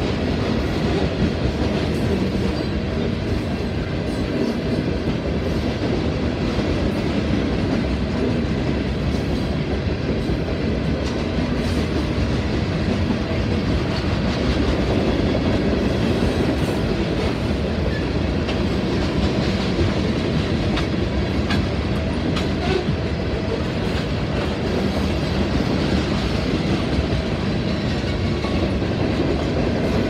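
A freight train of coal hopper cars rolling past at speed, a steady rumble and rattle of wheels on the rails.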